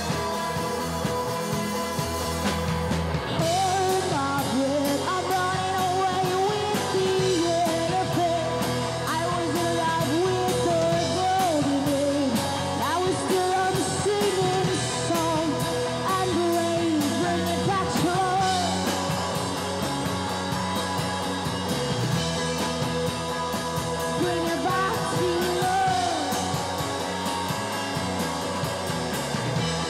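A live rock band playing, with electric guitar and drum kit and a singer's voice over them for much of the time.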